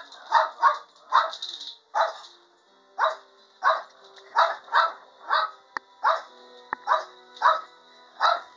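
Small dog barking repeatedly at the person in front of it, about fourteen short, sharp, high barks at one to two a second with a brief pause in the middle: protective warning barks.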